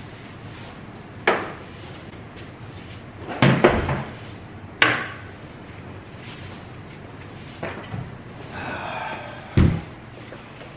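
Sharp knocks and clatters of a kitchen floor being cleaned up, a handful spread over ten seconds, the loudest a double knock about three and a half seconds in and a heavy thud near the end.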